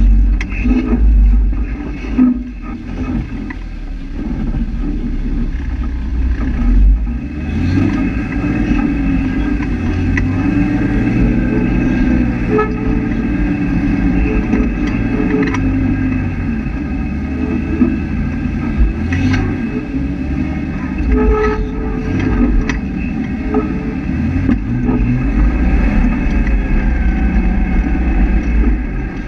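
Off-road 4x4's engine running at low revs as it crawls over a rocky trail, with scattered knocks and clunks as the tyres and chassis go over rocks.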